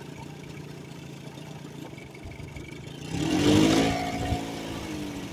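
Boat outboard motor running at idle, then throttled up about three seconds in: the pitch rises with a brief rush of noise, and it settles into a steady, slightly louder run.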